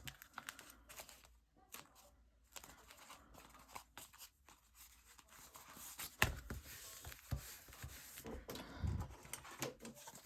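Paper being handled and pressed down while glued into a journal: faint irregular rustling and crinkling, with a few soft knocks on the table about six seconds in and again near the end.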